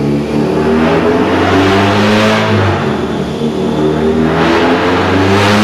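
Honda H22A four-cylinder DOHC VTEC engine with Crower stage 3 cams, a header and 3-inch exhaust, running hard on a chassis dyno with the drive wheel spinning on the rollers. The engine note holds fairly steady with small shifts and begins to climb near the end.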